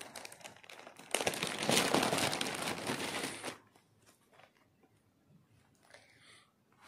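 Crinkling and rustling as a black wallet is handled and opened. The noise is loudest for about two seconds starting a second in, then drops to faint handling sounds.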